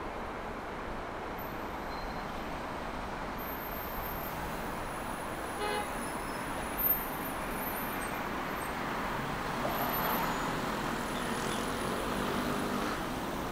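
Steady city road traffic noise, with a short pulsed horn beep about six seconds in and a vehicle passing close around the ten-second mark.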